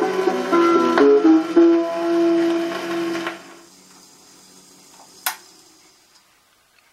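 Closing bars of an acoustic 1925 78 rpm shellac recording of old-time string music, with held notes over guitar strums, played on a phonograph; the music ends about three seconds in. Faint record surface hiss follows, with one sharp click about five seconds in, before the sound dies away.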